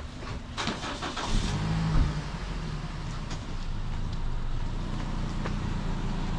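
A car engine running steadily with a low hum, with a few light clicks.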